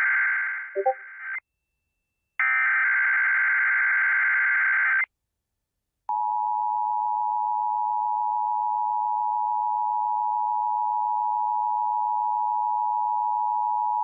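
Emergency Alert System SAME header tones: two harsh digital data bursts of about two and a half seconds each, then from about six seconds in the steady two-tone EAS attention signal, which marks the start of a Required Monthly Test.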